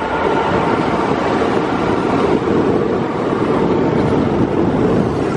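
Steady, unbroken road noise from riding in a moving vehicle along a wet road.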